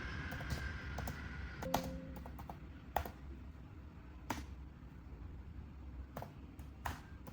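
Faint keystrokes on a laptop keyboard: a dozen or so separate clicks at irregular intervals, typed slowly, over a low steady hum.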